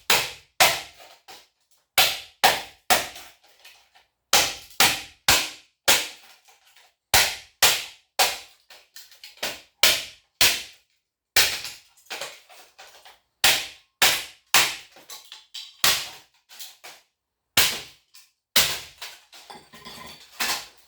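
Hatchet chopping into a small electric motor to break it apart for its copper windings: a long run of sharp strikes, about two a second, with a couple of short pauses.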